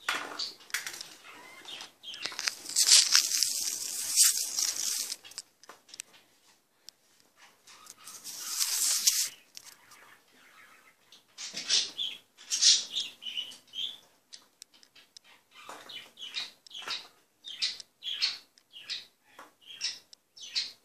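Rustling and rubbing against the recording phone's microphone as it is handled and covered: two long noisy stretches, then a run of short scratchy brushes.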